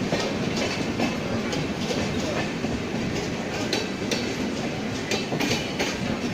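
Passenger train rolling along the track: a steady rumble with repeated clicks of the wheels going over rail joints.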